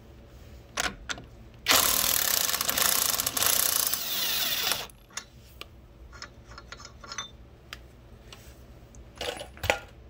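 Impact wrench rattling on the 1¼-inch rear axle nut for about three seconds, breaking it loose and spinning it off. A few short metallic clicks and knocks from the socket and tools come before and after.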